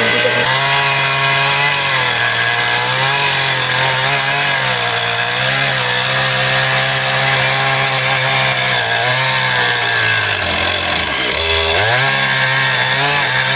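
A Stihl MS661 two-stroke chainsaw runs at high revs as it cuts through a large tree trunk. About ten seconds in, the engine pitch sags briefly under load, then picks back up.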